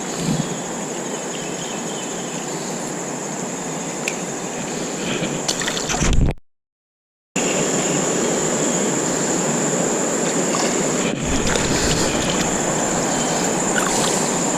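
Steady rush of river water, with a constant high-pitched drone of insects over it. The sound cuts out completely for about a second near the middle, then resumes slightly louder.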